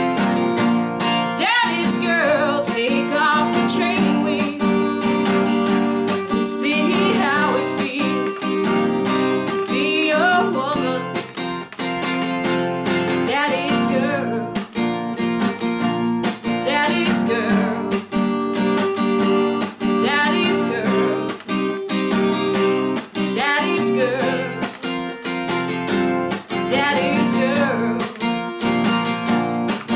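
Acoustic guitar strummed in a steady rhythm, with a woman singing over it through much of the stretch.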